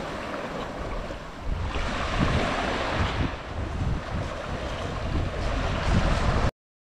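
Small waves washing up on a sandy beach, with gusty wind blowing across the microphone in a low rumble. The sound cuts off suddenly near the end.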